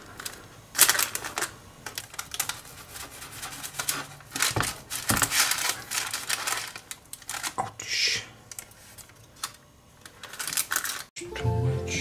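Irregular clicks, taps and scrapes of hands and utensils handling food at a kitchen counter. Music starts suddenly near the end.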